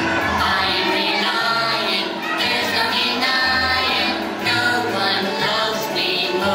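A Christian children's song: a group of voices singing together over bass and accompaniment.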